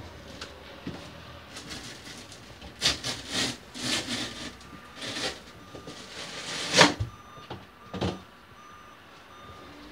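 Wooden trim panel being worked loose and pulled off a wall, with a string of scraping rattles and a few sharp knocks, the loudest about seven seconds in.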